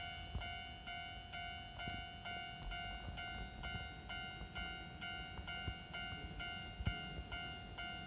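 Japanese railway level-crossing warning bell ringing in a steady repeated electronic tone, about two rings a second, signalling that a train is approaching and the barriers are down.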